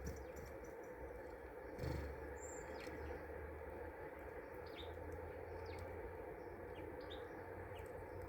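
Small garden birds giving short, scattered chirps over a steady background hiss, with a soft thump about two seconds in.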